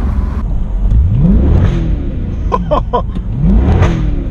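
Mercedes-AMG engine and exhaust, heard from inside the cabin, given two short bursts of throttle: each time the note rises sharply and then falls away as the throttle is lifted.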